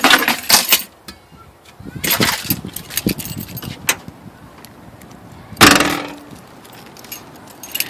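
A bunch of keys jangling and clattering in hand, in short bursts, with a louder sharp clack about five and a half seconds in.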